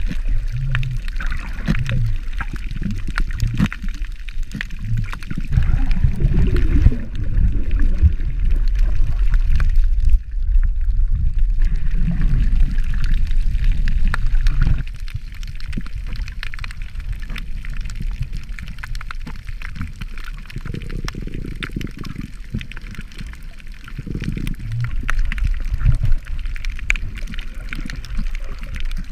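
Underwater water noise picked up by a submerged action camera: muffled sloshing and gurgling with a fine crackle of clicks. It swells for several seconds, then drops off about halfway through.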